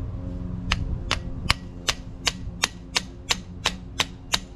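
Small hammer tapping steadily on a steel bearing puller, about eleven quick metallic taps a little under three a second starting about a second in, to jar a stuck cast iron hand wheel loose from its shaft.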